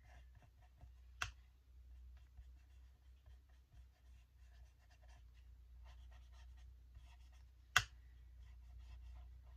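Faint, quick tapping and scratching of a paint brush dabbing small dots of paint onto paper, over a steady low hum. Two sharp clicks stand out, about a second in and near the end.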